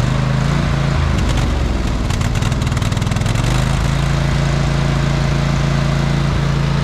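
Riding lawn mower's engine running steadily under load, with a patch of rapid ticking and clattering from about one to three and a half seconds in.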